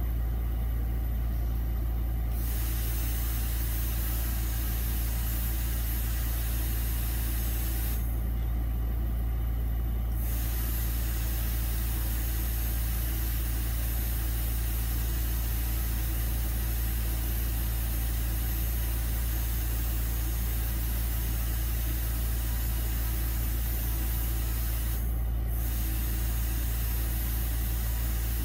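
Steady low hum with a constant hiss behind it, unchanging throughout.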